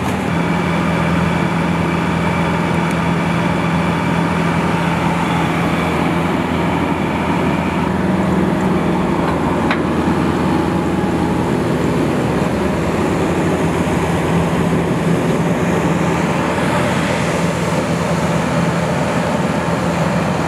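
Steady drone of machinery on the airport apron beside a parked airliner, with a strong low hum and high whining tones that fade out after about six to eight seconds.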